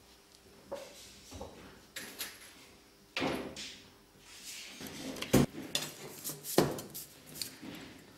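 Irregular clinks, taps and short scrapes of tools and small metal pieces on a workbench around a leaded stained-glass panel as it is worked on. The loudest knock comes about five and a half seconds in, with another strong one about a second later.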